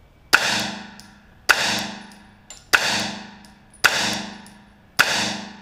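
Five shots from a 9mm Ruger PC Carbine with a two-port compensator, fired at a slow, even pace of about one a second. Each shot rings on and fades over about a second in the echoing indoor range.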